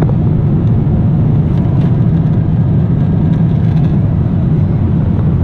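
Steady low rumble of a jet airliner's cabin noise in flight.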